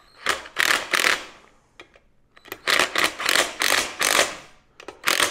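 Ratchet wrench clicking in quick rhythmic strokes, about four a second, in three runs, as 13 mm bolts are run in.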